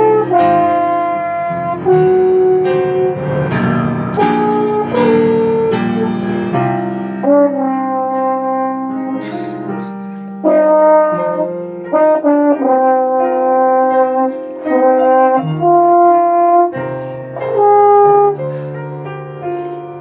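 French horn playing a melody of held notes over piano accompaniment.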